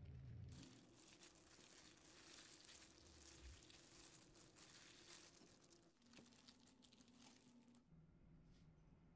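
Gloved hands mixing shredded cheese into chopped aged kimchi on a plate: faint crinkling and rustling of disposable plastic gloves and the food, dying away after about six seconds.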